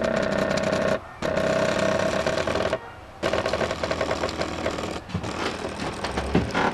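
Motors of a homemade CNC plotter built from electronic scrap, whining steadily with rapid ticking as they drive the axes, stopping briefly between moves about a second in, around three seconds in and about five seconds in. A short knock near the end.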